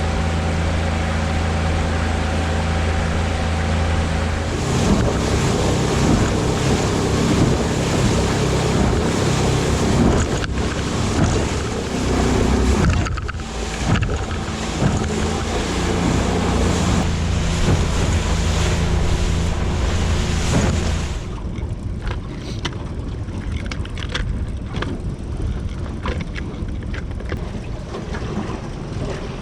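A boat's motor running steadily under way, with wind and water rushing past; about two-thirds of the way through the motor sound stops, leaving wind buffeting the microphone and waves.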